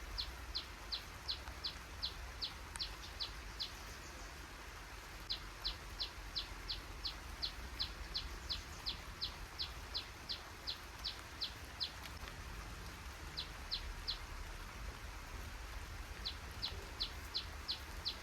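A small bird calling in runs of short, high, evenly repeated notes, about three a second, each run lasting several seconds with brief pauses between, over faint outdoor background noise.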